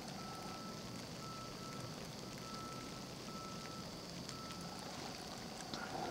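Quiet outdoor ambience in falling snow: a faint, steady hiss, with a faint high thin tone that comes and goes in short pieces.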